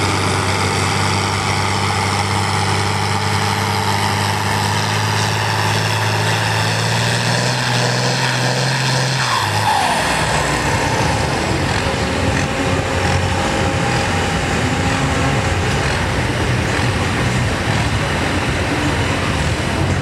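John Deere farm tractor engine working hard under load as it pulls a weight-transfer sled, its pitch creeping up before dropping away sharply about halfway through as the pull ends. The engine then runs on at lower speed, rougher and less even.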